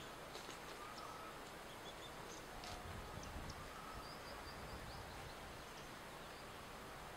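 Faint outdoor ambience: a steady background hiss with scattered short bird calls.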